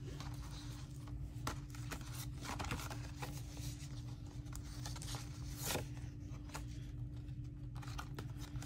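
Paper pages and card being handled on a table: scattered soft rustles and light taps, over a steady low hum.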